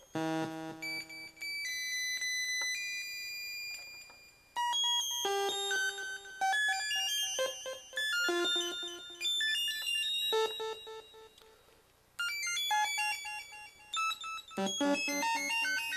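Sawtooth synth notes at random pitches from an STM32F4 Discovery board's band-limited minBLEP oscillator, each note repeated by a feedback delay. The note stream thins out and fades about three quarters of the way through, then starts up again.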